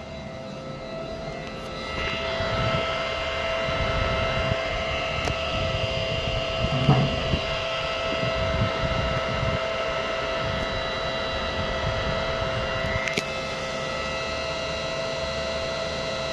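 An uninterruptible power supply (UPS) giving off a steady electrical hum and whine made of several fixed tones, the unwanted noise that its owner reports as a problem. It grows louder about two seconds in, with a short louder blip around seven seconds, and eases a little near the end.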